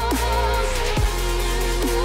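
Electronic background music with deep falling bass drops a little under once a second under held, slightly wavering synth notes.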